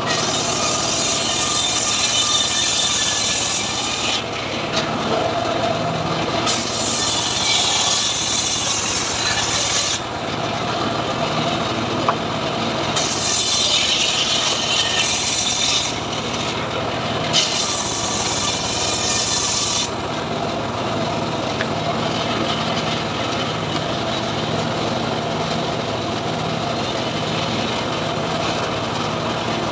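Homemade circular saw bench, driven by an engine, ripping lamtoro (leucaena) wood: four cutting passes of about three to four seconds each as the blade bites, over the steady hum of the motor. After about twenty seconds the saw runs on without cutting.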